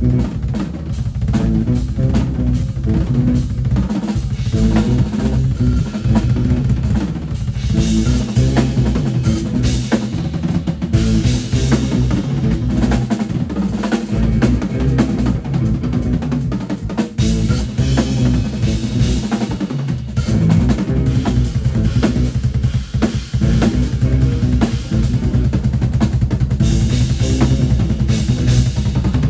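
Live band music driven by busy, loud drumming on a DW drum kit, with bass drum, snare and cymbals, over a low bass line.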